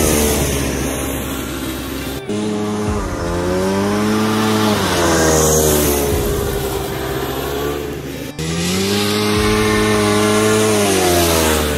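Racing lawn tractor's 440 twin-cylinder two-stroke snowmobile engine at high revs, its pitch climbing, holding and dropping away three times as it speeds past. Each stretch stops abruptly at a cut, about two seconds in and again about eight seconds in.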